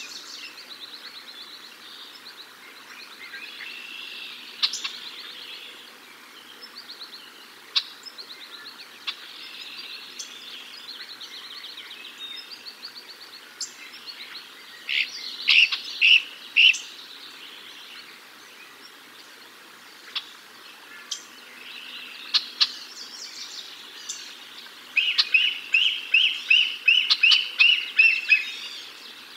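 Young bald eagle giving high piping calls: a short burst of loud notes about halfway through, then a run of about nine evenly spaced, slightly falling notes near the end. Softer chirps and trills from small birds in the surrounding trees carry on throughout.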